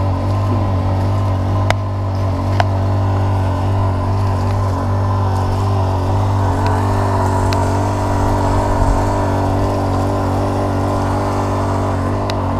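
Small petrol engine of a Rainman watermaker running steadily with the choke off, driving its high-pressure pump.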